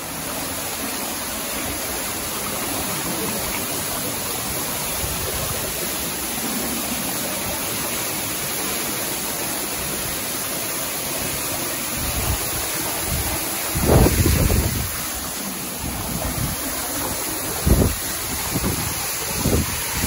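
Steady rushing of a small waterfall pouring down into a narrow rock cleft. Gusts of wind hit the microphone about two-thirds of the way through and again near the end.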